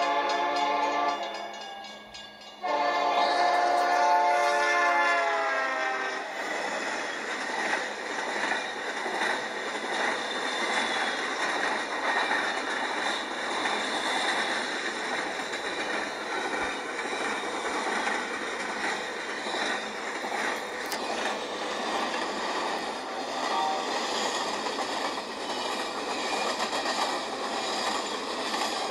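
Diesel freight locomotive horn sounding twice, the second, longer blast dropping in pitch at its end. Then comes the steady rattle and clickety-clack of a long intermodal train's container flatcars rolling past, heard through a tablet's small speaker.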